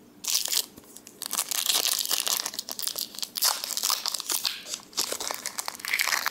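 Foil wrapper of a Pokémon card booster pack being torn open and crinkled: a short crackle, then several seconds of dense crinkling.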